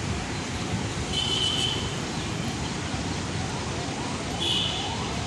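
Steady outdoor traffic noise with two short high chirps. In the second half a faint siren starts, rising in pitch over and over.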